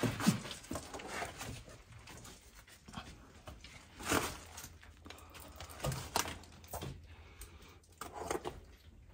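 Irregular short scuffs, rustles and breaths of a person clambering through a narrow rock crevice, a few stronger ones scattered through, with a brief low grunt-like sound near the start.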